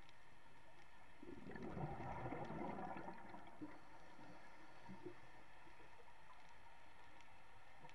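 Scuba diver's exhaled air bubbling from the regulator: one burst of bubbles starting about a second in and lasting about two seconds, over a steady underwater hiss.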